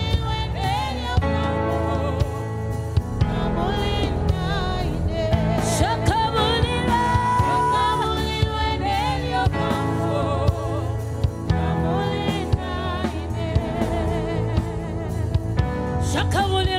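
Live gospel song: a woman sings a melody with wide vibrato into a microphone, backed by a band with a drum kit keeping a steady beat.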